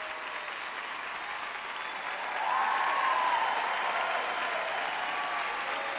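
Studio audience and judges applauding, growing louder about two seconds in.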